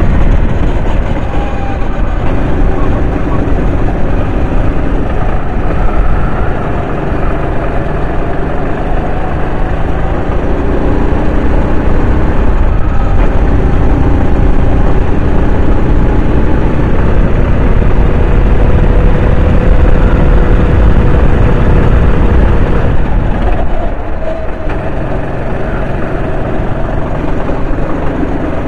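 Racing kart engine running hard around the track, its pitch rising and falling as it accelerates and lifts off for corners, with brief drops in level about a quarter of the way in and near the end.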